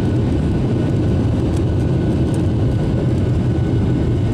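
Airbus A321 jet engine and airflow noise heard inside the cabin during the climb just after lift-off: a loud, steady low rumble.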